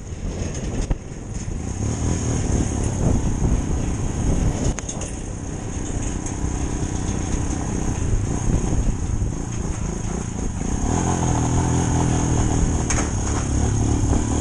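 Single-cylinder Royal Enfield motorcycle engine running at low speed, with the revs rising and falling near the end.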